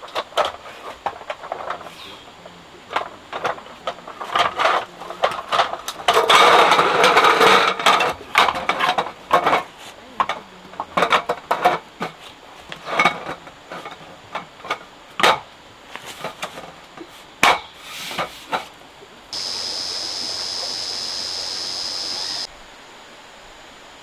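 A run of sharp knocks and clatters, densest a few seconds in, as of gear being handled or struck. About two-thirds of the way through, a steady hiss with a faint whistle starts suddenly and cuts off about three seconds later.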